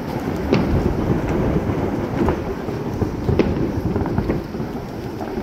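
Fireworks going off all around: a continuous rumble of booms with sharp pops about once a second.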